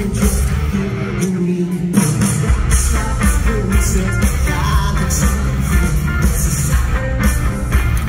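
Live rock band playing loudly with electric guitars, bass and drums, a lead vocalist singing over them. A little over a second in, the deep low end drops out for about a second, then the full band comes back in.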